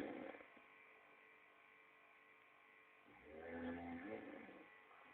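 A person snoring with a loud, buzzy, rattling snore: the end of one snore at the start, then another about three seconds in that lasts about a second and a half.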